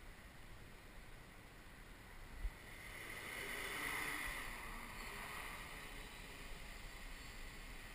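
XAircraft X650V X8 coaxial multirotor's electric motors and propellers spinning up about three seconds in, after a small knock. Their whir swells to its loudest around four seconds in, then settles to a steady, fainter whir as the craft lifts off into a low hover.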